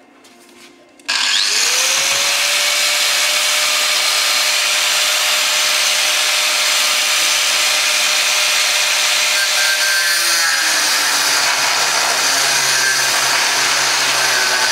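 Angle grinder with a cutting disc spinning up about a second in and cutting through the steel of a small old axe head, shedding sparks. Its steady whine dips in pitch about ten seconds in.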